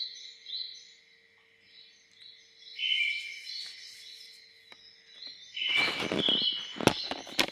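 Birdsong: repeated short chirps and whistled phrases. About six seconds in a louder rustling with a few sharp knocks sets in under it.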